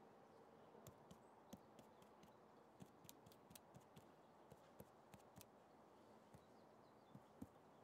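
Near silence: faint room tone with scattered light clicks, about two a second at irregular spacing.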